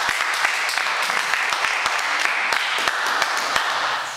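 Small audience applauding, a dense patter of hand claps that fades out near the end.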